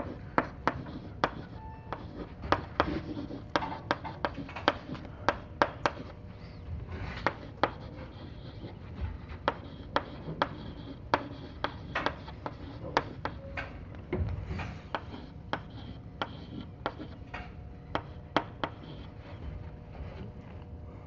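Chalk writing on a blackboard: sharp taps and short scrapes of the chalk at an uneven pace, a few a second. A faint steady hum runs underneath.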